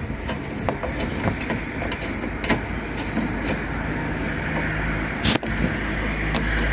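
Scattered light clicks and taps of hand-tool work on a van's headlight bolts, while the sound of a passing motor vehicle, its engine and tyres, swells toward the end.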